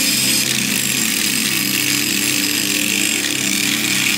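Angle grinder running steadily, its abrasive disc grinding along the steel edge of a kitchen knife blade, a loud continuous hiss of metal being ground.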